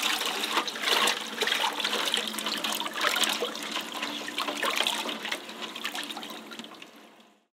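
Running water splashing and spattering as freshly shot quail are rinsed and their feathers knocked off under the stream. It fades out near the end.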